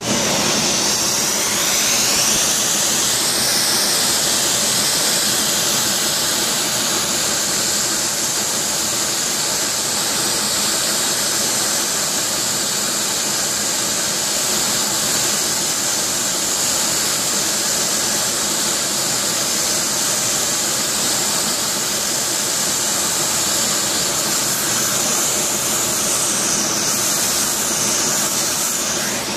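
Gas brazing torch flame hissing steadily as it heats a copper tube joint to melt a silver brazing ring.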